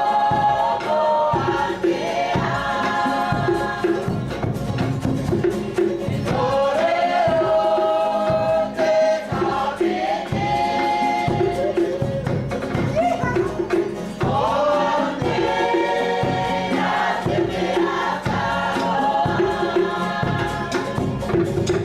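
Background music: a choir of voices singing over a steady beat.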